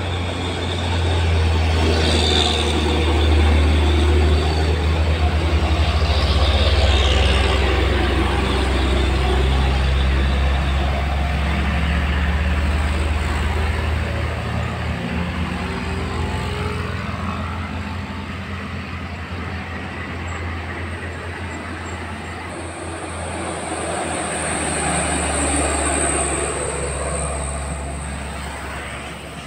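Diesel engines of heavy trucks labouring up a steep climb under load. A Hino container truck's deep, steady engine drone is loudest as it passes close in the first half, then fades. Near the end another truck's engine swells as it goes by.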